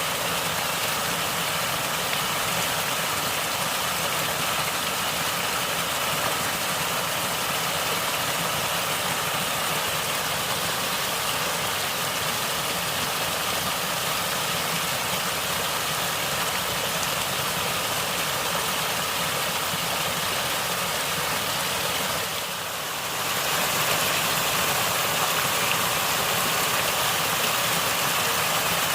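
Natural stream water gurgling and flowing steadily. The sound dips briefly about three-quarters of the way through, then comes back a little louder.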